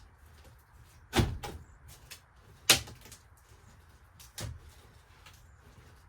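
Wooden interior cabinetry of a vintage camper being worked loose: three sharp knocks about a second and a half apart, the second the loudest, with faint ticks and taps between them.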